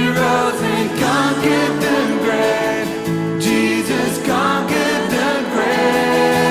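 A song with singing over guitar accompaniment, in the manner of a gospel or Christian pop song.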